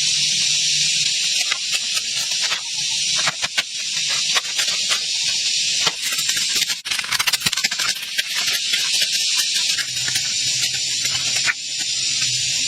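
Steady high-pitched hiss with scattered clicks and knocks, and a quick rattle of clicks about seven seconds in.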